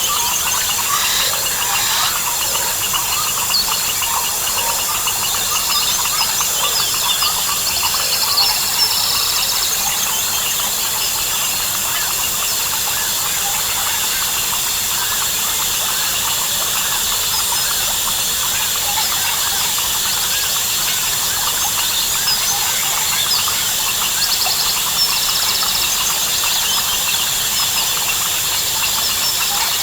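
Dense tropical rainforest chorus: crickets and other insects keep up a steady high-pitched drone, with many overlapping short calls from frogs and birds over it. A pulsed insect trill comes in briefly a few times.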